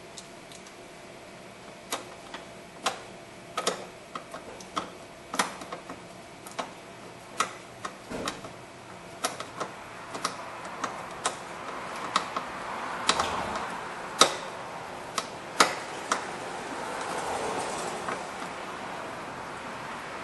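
Irregular sharp clicks and clinks of screws and metal parts being handled as a blower motor's mounting screws are started by hand, with a rustling of hands and clothing rising in the second half.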